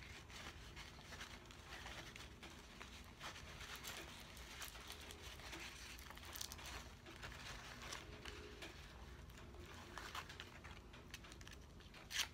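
Faint rustling and crinkling of a paper towel and the plastic wrapping of a small ring packet being handled and unwrapped, with a sharper crinkle near the end.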